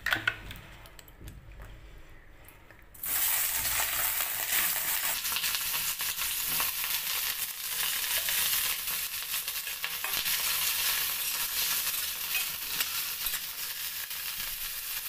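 Eggplant (brinjal) pieces frying in hot oil in an aluminium kadai, a steady sizzle that starts suddenly about three seconds in, with a spatula stirring them. A couple of sharp knocks come right at the start.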